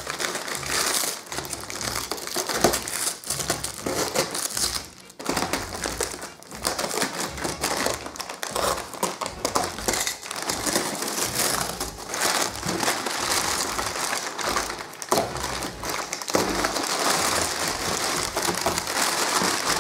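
Crumpled brown kraft packing paper crinkling and rustling as hands dig through it inside a cardboard box, with many small crackles and knocks throughout and two brief lulls about five and six and a half seconds in.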